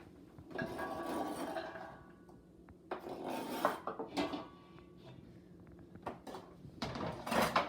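Kitchen prep sounds: vegetables and utensils scraping, rubbing and knocking on a wooden cutting board in three short spells, with a few sharp knocks between them.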